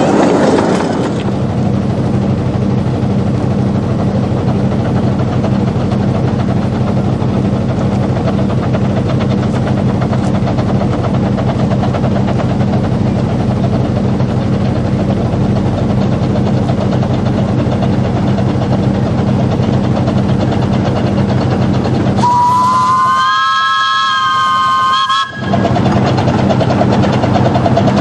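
15-inch-gauge steam locomotive Typhoon running past with its train, with a steady low rumble. About three-quarters of the way through, its steam whistle sounds for about three seconds, rising slightly in pitch, then cuts off suddenly.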